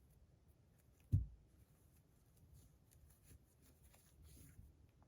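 Small objects being handled on a desk: a single dull thump about a second in, then faint rustling and small clicks.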